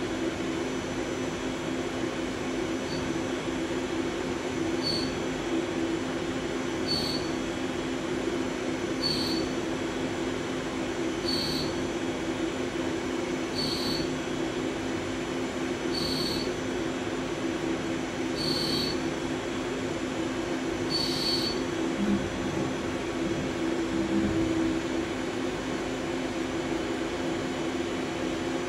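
CNC lathe's live milling tool in a WTO driven tool holder cutting a hardened 60 HRC steel pin: a steady machine hum, with a short high chirp about every two seconds that repeats about nine times and stops about three-quarters of the way through.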